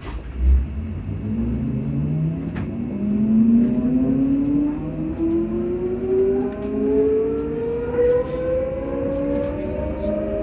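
Class 334 electric multiple unit's traction motors whining as the train pulls away and accelerates, several tones rising steadily in pitch together. A low thump sounds about half a second in, and the whole is heard from inside the passenger saloon.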